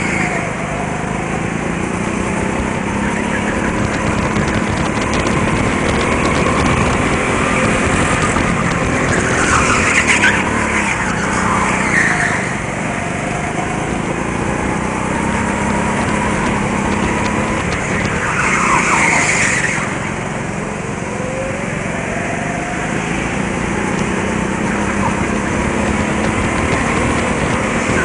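Go-karts running hard around an indoor track, heard from on board one kart, their motor pitch rising and falling through the corners. Two brief tyre squeals, about a third and two-thirds of the way through.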